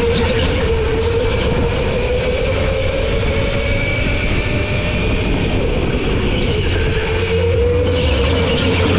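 Electric go-kart driving at speed, its motor whine drifting slightly in pitch as it slows and speeds up, over steady rumble from the kart and track.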